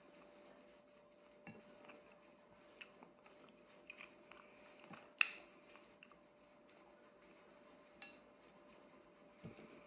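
Faint clinks and taps on a plate while eating, the sharpest about five seconds in and another near eight seconds, over a faint steady hum.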